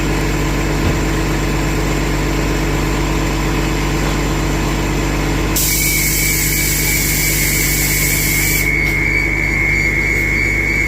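Transit bus idling with a steady hum; about halfway in a loud hiss of released air runs for about three seconds as the bus lowers, and a steady high warning tone starts with it and keeps sounding, the alert that goes with the wheelchair ramp being worked.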